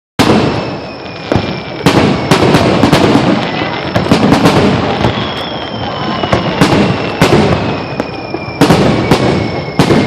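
Fireworks finale barrage: shells bursting in rapid succession, several loud bangs a second over continuous crackling, with thin high whistles falling slowly in pitch.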